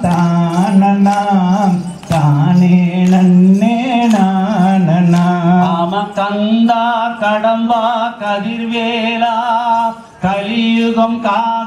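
Male voice singing a Tamil valli kummi folk song through a microphone and PA, long phrases with wavering held notes and short breaths between them, over a faint steady beat of sharp ticks.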